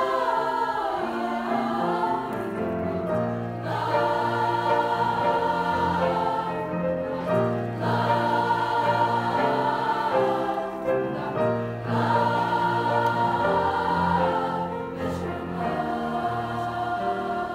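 Girls' choir singing long, held phrases with piano accompaniment, the phrases pausing briefly about every four seconds.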